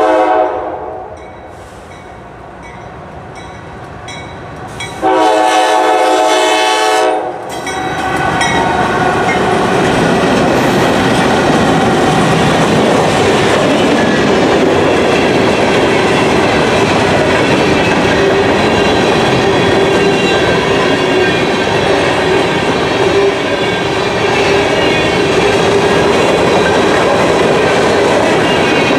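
Diesel freight locomotive horn sounding two blasts, one at the start that fades over a second or so and a louder, longer one about five seconds in. From about eight seconds the lead GE locomotives pass close by, and then empty covered hopper cars roll past with a steady, loud noise of wheels on rail.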